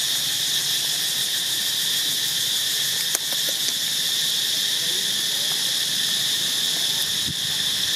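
Steady, high-pitched insect drone, with one faint click about three seconds in.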